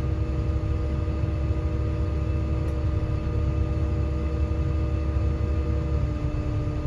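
Merlo telehandler's diesel engine running steadily, heard from inside its cab as a low rumble with a steady hum. The hum steps slightly lower in pitch about six seconds in.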